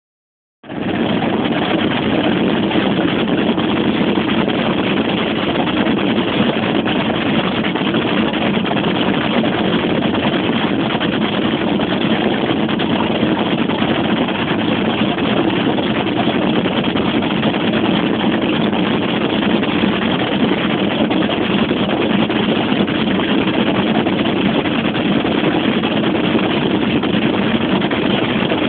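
Open motorboat running under way: a steady, even rush of engine and passing water that starts about half a second in and holds level throughout.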